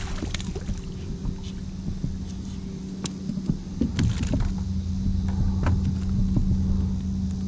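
A small fish splashing at the water's surface beside a kayak as it is reeled in, with scattered clicks and knocks of the fishing gear being handled. A steady low hum runs underneath.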